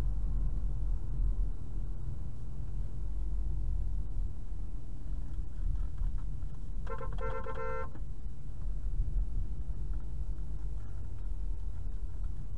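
Steady low road and engine rumble inside a moving car, with a car horn sounding once for about a second about seven seconds in.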